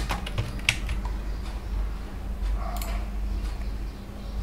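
A few computer keyboard keystrokes in the first second, then a single fainter click near three seconds in, over a steady low electrical hum.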